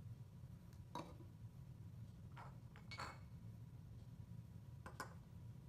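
Small plastic toy ducks set down on a tabletop: four light knocks spread over a few seconds, the third the loudest, over a faint low room hum.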